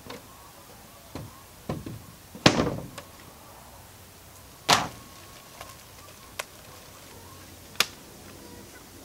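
A handful of separate knocks and thumps at uneven intervals, the loudest about two and a half seconds in and another near five seconds, followed by a couple of sharp clicks.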